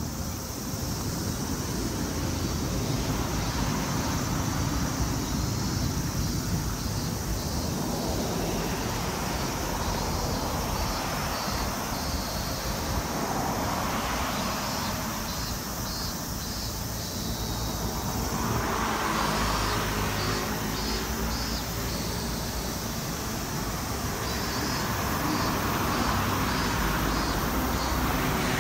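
Street traffic on the road beside the sidewalk, a steady hum of passing cars that swells and fades several times as vehicles go by.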